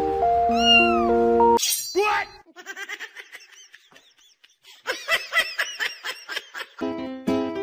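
Background music breaks off, then a person's voice exclaims and laughs in short bursts of rising and falling pitch. Light music starts again near the end.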